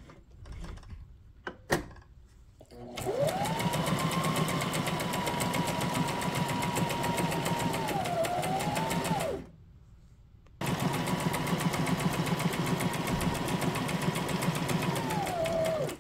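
Brother SM2700 sewing machine stitching in two runs. Its motor whine rises as it starts about three seconds in, holds steady over rapid needle strokes, stops for about a second in the middle, then runs again and winds down near the end.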